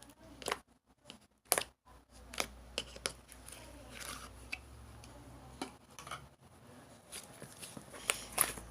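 Slime squished and pressed by hand, giving irregular sticky clicks and pops.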